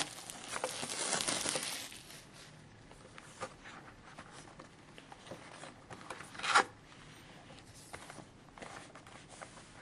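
Plastic shrink-wrap being torn and crinkled off a cardboard trading-card box, loudest in the first two seconds. Then quieter rustling as the box is opened and handled, with one brief louder rustle about six and a half seconds in.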